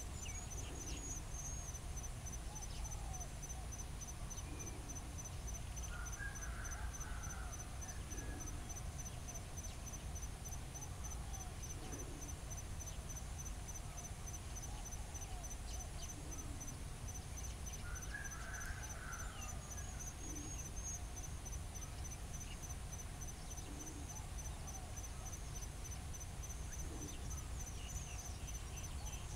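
Outdoor ambience led by an insect chirping in a fast, even, unbroken high pulse, over a low background rumble. Two brief faint calls come about 6 and 18 seconds in.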